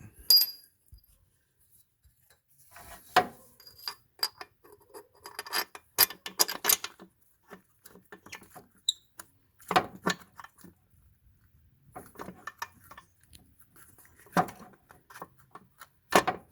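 Irregular metallic clinks and clanks of hand tools, bolts and the starter motor against metal as the starter is fitted and bolted back in place, some strikes ringing briefly.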